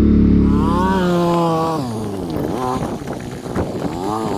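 Off-road vehicle engine revving, its pitch climbing and dropping in several swells.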